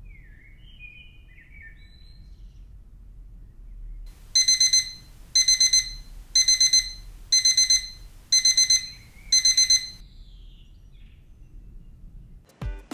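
Electronic alarm beeping in six short bursts of rapid high beeps, about one burst a second. Before it, a bird chirps briefly, and another chirp follows.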